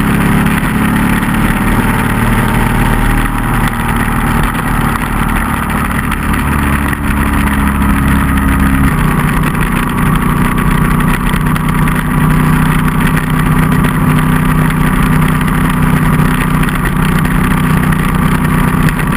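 Motorcycle engine running at steady cruising speed with wind rush, heard from the riding bike itself; the engine note changes pitch about halfway through.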